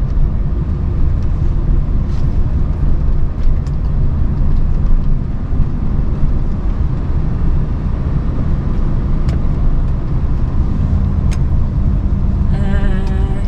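Lorry running on the road: a steady low rumble of diesel engine and road noise while driving. Near the end a short wavering tone with several pitches sounds for about a second.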